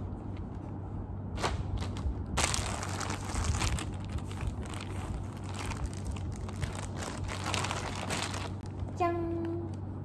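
Thin plastic packaging bags crinkling and rustling as clothes are handled and pulled out of them, busiest through the middle. A short steady pitched note sounds once near the end.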